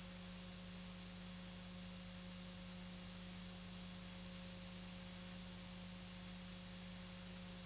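Steady low electrical hum with a faint even hiss, unchanging throughout. Nothing of the truck's motors or tyres is heard.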